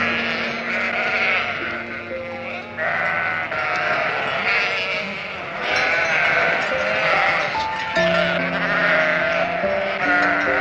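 Background music with long held notes, and an animal bleating over it again and again in wavering calls of a second or two each.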